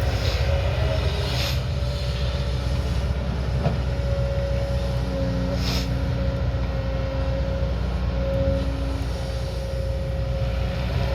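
Diesel engine of a heavy earthmoving machine running steadily under load, with a steady high whine over the engine note and three short sharp sounds during the work.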